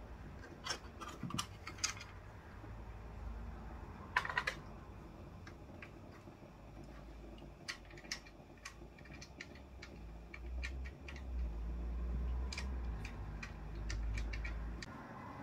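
Irregular light clicks and taps, a few louder ones near the start and around four seconds in, then a run of small ones, over a low rumble that swells in the last few seconds.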